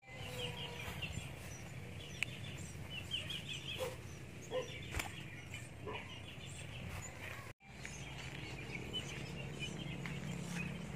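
Outdoor rural ambience: small birds chirping in quick repeated trills over a steady low rumble, with a few soft clicks and a brief drop to silence about seven and a half seconds in.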